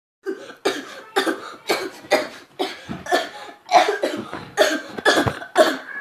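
A person coughing over and over in an acted coughing fit, a dozen or so harsh coughs at about two a second.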